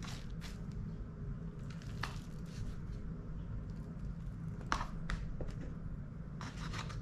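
Soft rustle and patter of damp, sprouted oat seeds poured from a plastic container onto a growing tray, with a few light clicks, over a low steady hum.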